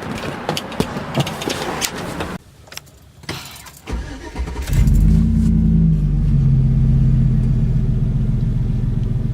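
Clattering with sharp clicks for the first couple of seconds, a knock, then a truck engine starting about four seconds in and settling into a steady idle.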